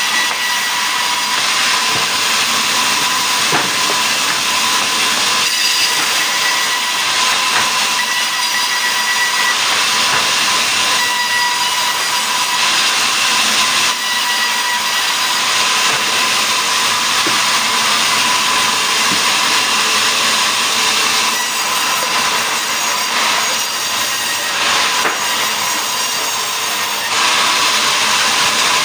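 Sawmill saw cutting mahogany into boards: a loud, steady hissing whine with a constant high tone.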